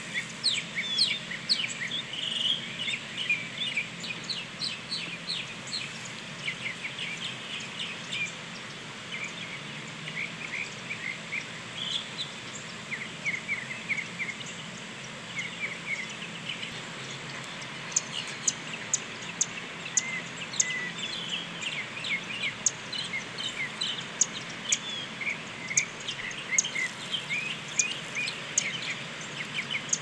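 Small birds chirping and singing: a dense run of short, high calls and whistles, thickening over the second half.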